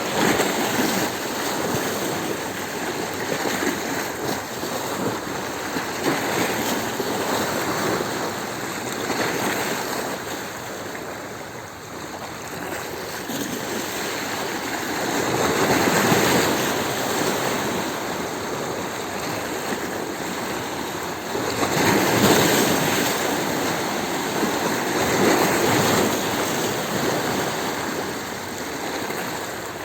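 Sea waves washing onto a stony shore, a continuous rushing surf that swells and eases, with stronger surges about halfway through and again about two-thirds of the way in.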